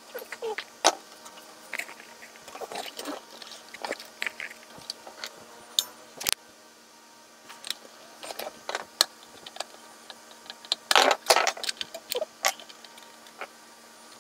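Irregular metallic clicks, clinks and taps of a screwdriver and other hand tools working the bolt of a bridge rectifier on a battery charger's sheet-metal case, with a louder burst of clatter a little past the middle.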